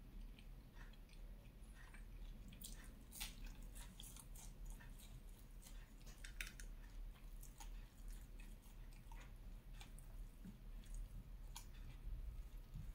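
Faint close-up food sounds: scattered soft clicks and crackles as dosa and fried banana are handled and eaten, a few sharper clicks about three and six and a half seconds in.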